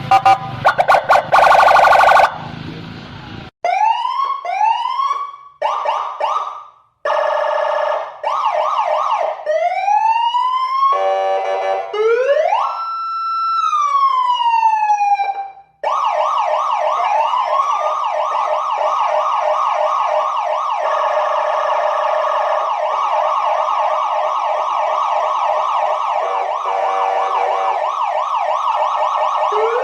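Indonesian police escort (patwal) electronic siren switching through its tones: short rising whoops, a rapid warble, a slow wail that climbs and falls, then a continuous fast yelp from about halfway on. It opens with a couple of seconds of choppy, pulsing horn-like blasts.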